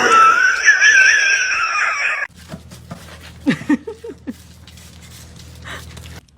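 A high, wavering vocal cry from a pet, lasting about two seconds and cutting off abruptly. After it comes a quieter stretch with a steady low hum and a few short, faint sounds.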